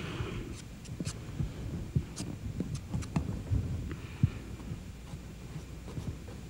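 A palette knife tapping and dabbing oil paint onto a stretched canvas: irregular light taps and dull knocks, the strongest just past four seconds in, with a low steady hum underneath.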